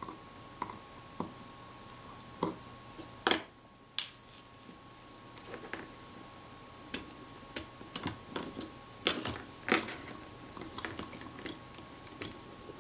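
Irregular small metal clicks and taps of a hand tool and the metal parts of a Braun Paxette camera being handled while its accessory shoe and top plate are worked loose, with two louder knocks about three and four seconds in.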